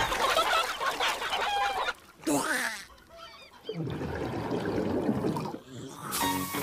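Cartoon hens squawking and clucking together in a flurry, followed by a rushing, scuffling noise about four seconds in. Cartoon music starts near the end.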